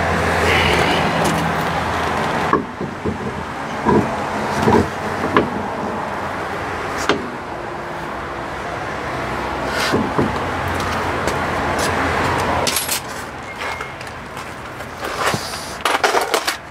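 A car alloy wheel being lifted onto the hub spacer's studs: several sharp knocks and metallic clinks as the wheel and wheel nuts are handled. A steady low rumble runs underneath, strongest at the start and again about two-thirds of the way through.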